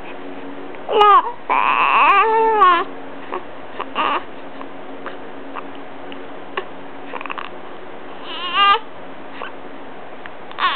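Six-week-old baby fussing on his back in short, whiny cries: a loud bout about a second in that lasts nearly two seconds, then brief whimpers around four seconds and eight and a half seconds, and another just before the end.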